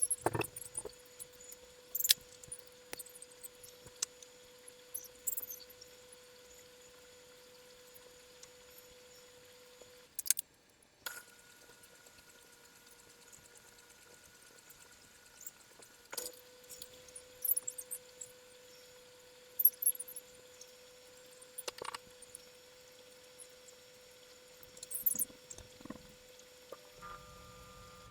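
Wargaming miniatures being picked up and set down while being sorted: scattered light clicks and small clatters at irregular intervals, over a faint steady hum.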